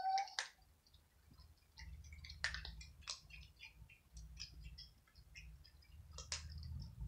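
Several cats crunching dry kibble, a steady run of crisp crunches with a few louder ones. A short pitched mew right at the start, and a low rumble underneath from about two seconds in.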